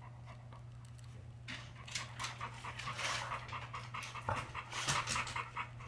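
American bully pit bull panting quickly and rhythmically with its mouth open, stress panting from a thunderstorm that frightened it. The panting starts about a second and a half in.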